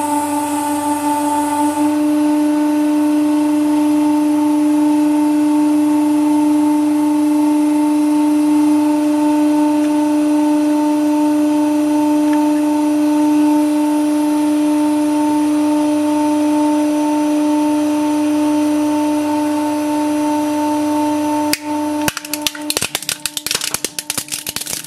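A hydraulic press's pump running with a steady, pitched hum. Near the end, a rapid string of sharp cracks and snaps as the ram crushes a plastic toy truck.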